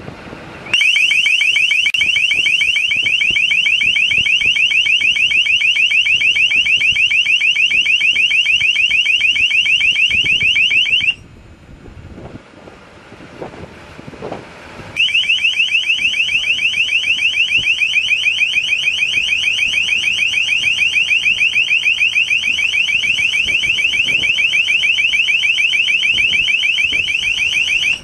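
LRAD (Long Range Acoustic Device) broadcasting a loud, high-pitched, rapidly warbling deterrent tone to drive birds off the runway. It sounds for about ten seconds, stops for about four, then sounds again to the end.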